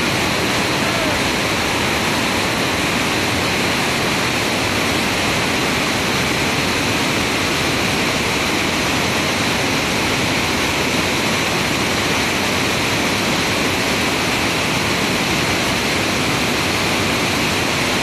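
A waterfall in flood, swollen by flash-flood runoff: a loud, steady rush of muddy water churning over rock ledges, unbroken throughout.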